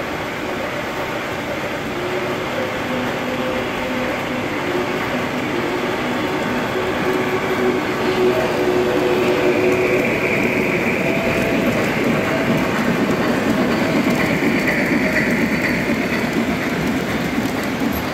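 Three-rail O-gauge model trains running on metal track: a steady rolling rumble that grows louder about eight seconds in, as a model Union Pacific steam locomotive passes close by.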